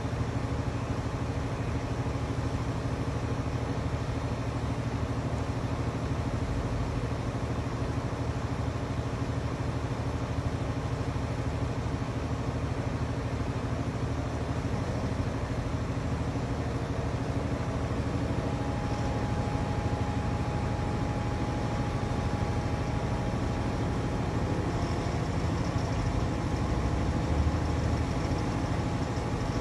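Large mobile crane's diesel engine running steadily while it carries a heavy lift. A faint high whine joins for several seconds past the middle.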